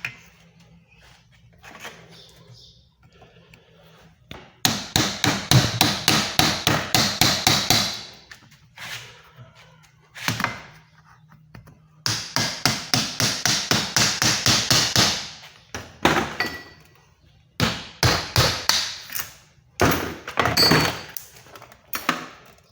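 Rapid hammer taps on metal in several runs, about four or five blows a second, breaking the metal clamps off a CV joint boot.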